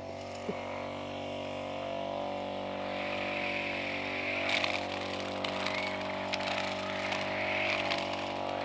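Petrol brush cutter running steadily at low throttle, too low, as the operator is told, for it to cut with full strength. From about three seconds in its cutting head swishes and crackles through grass.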